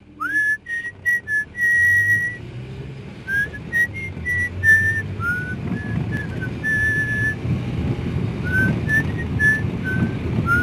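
A person whistling a slow tune in single clear notes, some held and some sliding into the next. The low rumble of a car running comes up underneath about halfway through.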